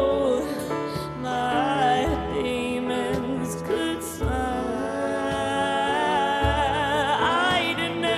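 Live acoustic pop song: a woman's voice sings a wavering melody over grand piano, fingerpicked steel-string acoustic guitar and cajón, with a low beat about every two seconds.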